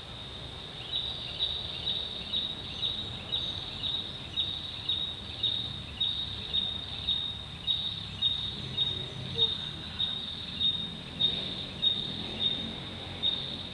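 Outdoor animal chirping: short high chirps repeating about twice a second, each dipping slightly in pitch, over a steady high-pitched drone and a low background rumble.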